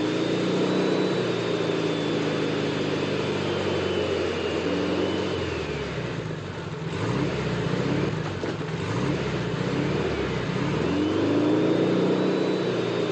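Small car's engine revving hard, its pitch rising and falling several times, with a dip about halfway and a climb again near the end, and a thin high whine above it.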